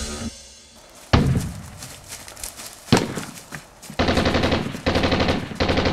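Gunfire: two single sharp shots a little under two seconds apart, then three quick bursts of automatic fire in the last two seconds.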